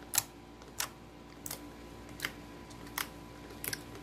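Fingers pressing and poking into a large blob of green slime, making about six sharp popping clicks spaced evenly, a little under a second apart.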